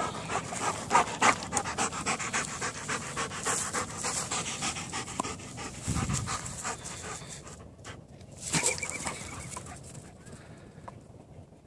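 Doberman panting hard at close range, a quick run of breaths that grows fainter in the last few seconds as the dog moves away.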